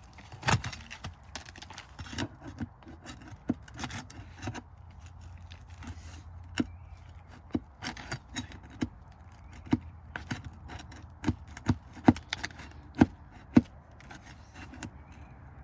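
Metal tool clicking and scraping against roofing nails and shingles as nails are worked loose from under the shingles. Irregular sharp clicks and knocks, with a few louder strikes in the second half.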